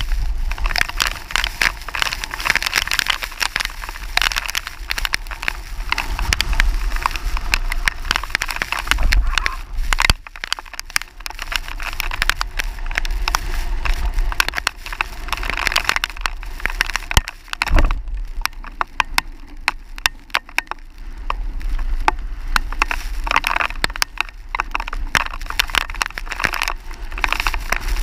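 Strong thunderstorm wind buffeting the microphone, with dense crackling clicks, rising and falling in gusts.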